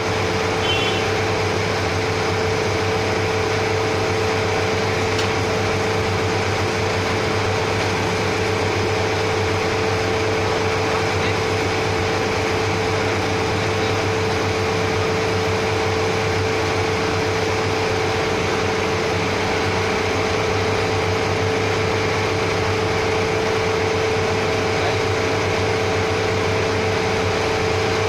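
Steady, loud drone of running machinery with a constant hum tone that does not change.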